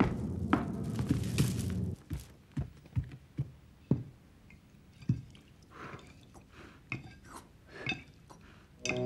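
Dense low rumble with thuds for about two seconds, then separate knocks and clicks of a spoon and dishes at a table, a few a second at most, with faint eating sounds.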